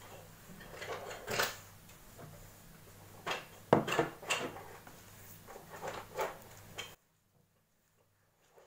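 A few separate knocks and clatters of objects handled on a breakfast table, over a faint low hum. The sharpest knock comes a little under four seconds in. About seven seconds in, the sound cuts off to dead silence.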